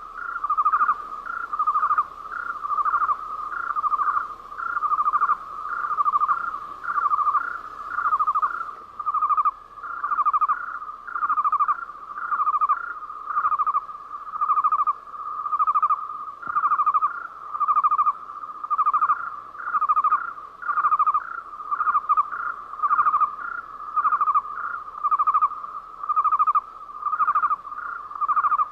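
Cricket chirping as a night ambience sound effect: short, rapid pulsed chirps repeating in an even rhythm, about one and a half a second.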